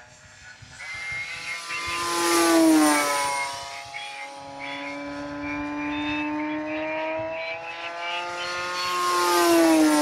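Nan-models Explorer BF 4 m electric F5J glider making fast low passes: a steady pitched whine that swells and drops in pitch as it goes by, about two and a half seconds in and again near the end.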